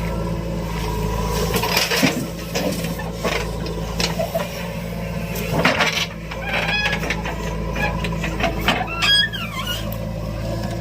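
Heavy diesel machinery running steadily, with scattered knocks and clanks. Short high-pitched chirps and squeals cut in about six seconds in and again near the end.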